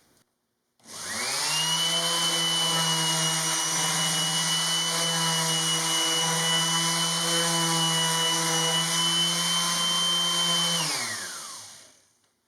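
Electric orbit sander spinning up about a second in and running steadily with a high whine while fine-grit sanding a wooden countertop, then winding down near the end.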